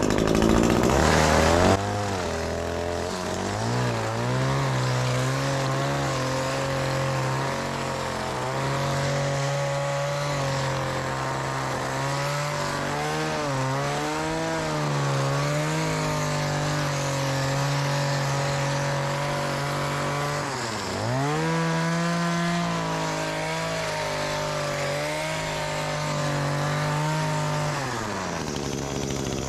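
Hedge trimmer running while cutting back a bed of dead ornamental grass. Its motor pitch wavers as the blades bite, drops sharply about two-thirds of the way through and climbs back, then winds down just before the end.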